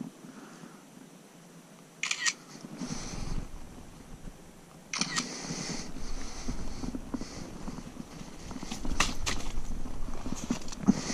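Smartphone camera shutter clicks: several short clicks a few seconds apart, with faint rustling between them.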